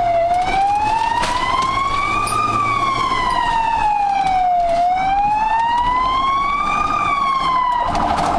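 Ambulance siren heard from inside the cab, wailing slowly up and down in pitch with about four and a half seconds per cycle. Near the end it switches to a fast-pulsing tone.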